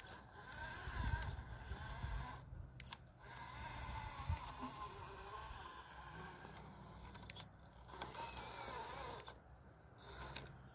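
Electric whine from an RC rock crawler's brushless outrunner motor and drivetrain as it creeps over rock. The whine wavers in pitch with the throttle and drops out briefly a few times. Low knocks come from the tyres and chassis on the rock, the loudest about a second in and about four seconds in.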